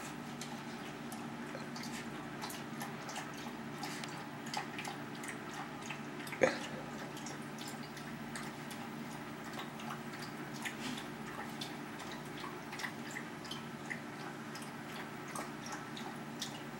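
Dachshund lapping water from a bowl: soft, irregular wet laps, with one louder click about six and a half seconds in, over a steady low hum.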